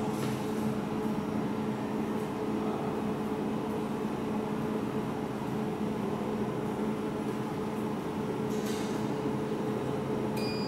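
Jewelry laser welding machine's water pump running steadily as it fills the cooling system with purified water, a constant mechanical hum with a low steady drone.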